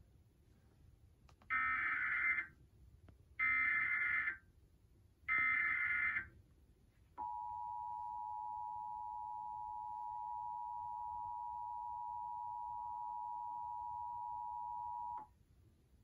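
Emergency Alert System Civil Emergency Message tones from a television: three short bursts of SAME digital header data, each about a second long, then the two-tone attention signal held steady for about eight seconds.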